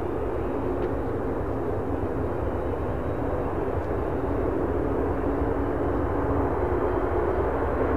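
Military fighter jet engine noise: a steady, rushing jet sound that slowly grows louder.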